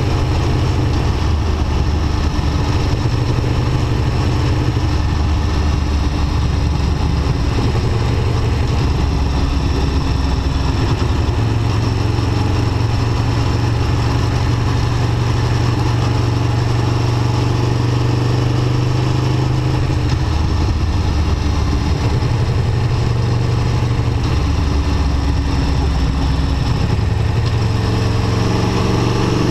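Aprilia Tuono V4 1100 RR's 1077 cc V4 engine running under way, heard from the rider's seat. The engine note holds steady for stretches and shifts in pitch several times.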